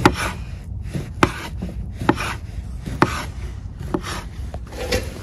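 Kitchen knife slicing a smoked sausage on a wooden cutting board, the blade knocking on the board about once a second, six times.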